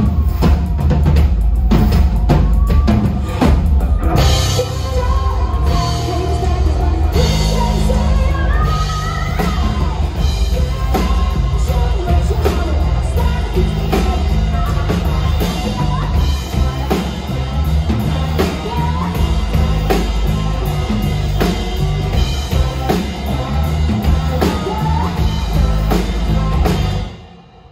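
A live rock band (drum kit, electric guitars, bass and keyboard) plays loud, with a woman singing lead over a steady drum beat. The band stops together near the end, leaving a short fading ring.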